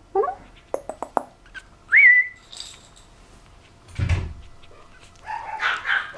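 A short high whistle-like note that rises and then holds, about two seconds in, and a muffled bump around four seconds; near the end a young puppy, a Pomeranian, starts whimpering and yapping.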